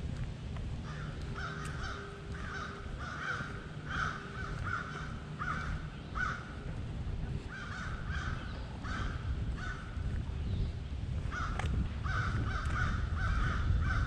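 A bird calling in runs of short, repeated calls, about two a second, pausing twice, over a steady low rumble.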